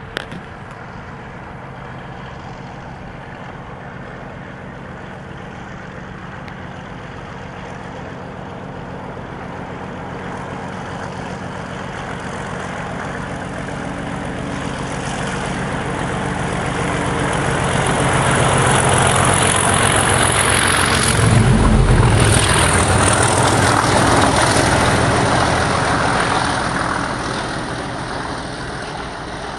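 Two English Electric Class 37 diesel locomotives working together pass by. Their engine drone and wheel noise grow louder as they approach, are loudest about two thirds of the way in, then fade as they draw away.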